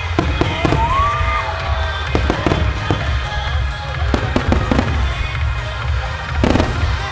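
Aerial firework shells bursting and firing in quick succession, many sharp reports over a steady low rumble, with one especially loud burst about six and a half seconds in. Music for the choreographed display plays underneath.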